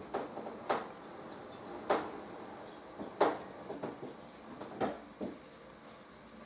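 About half a dozen light knocks and clicks at irregular intervals, over a faint background.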